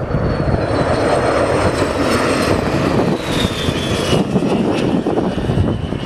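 Two Aero Vodochody L-39 jet trainers flying low past, their Ivchenko AI-25TL turbofans making a loud, steady rushing noise. A high whine over it slides down in pitch as they go by, starting about two seconds in.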